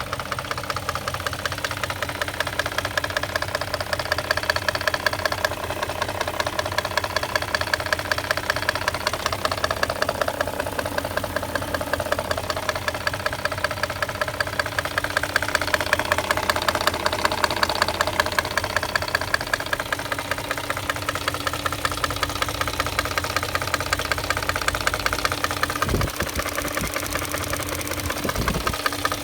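BMW M62B44TU 4.4-litre V8 running with a fast, regular knocking from the front of the engine in the area of the VANOS units. The knock shows up only once the engine is nearly warm and goes away a few minutes later.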